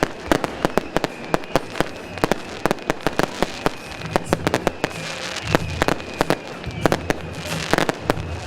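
Beehive rocket battery (蜂炮) firing: a dense, irregular barrage of sharp rocket bangs and cracks, several a second, with a thin steady high whistle under them.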